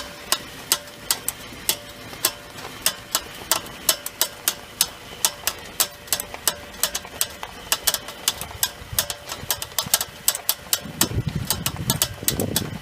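Rhythmic clicking from the front wheels of a 2013 Subaru XV as it turns, about three clicks a second at first and quickening as the car rolls faster. The owner hears this on both front wheels when turning, far less when rolling straight, and suspects a worn wheel bearing or drive axle. A low rumble, engine or tyres, swells near the end.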